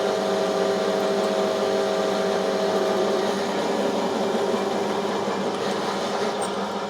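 Metal lathe running, turning a 4140 steel shaft. It gives a steady machine hum with a few held tones that drop out about three seconds in, and the sound fades as the lathe winds down near the end.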